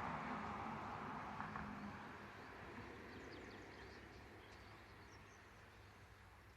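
A broad rushing noise dies away over the first few seconds, leaving a quiet outdoor background with a few faint, high bird chirps.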